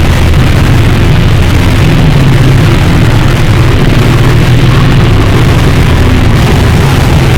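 Harsh noise music: a loud, unbroken wall of distorted noise, heaviest in the low end, with no beat or pauses.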